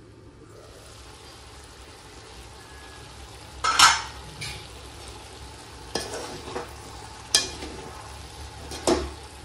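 Chopped bottle gourd (dudhi) sizzling in a pan while it is stirred, with a steady hiss and sharp metal scrapes and clinks of the spatula against the pan. The loudest scrape comes about four seconds in.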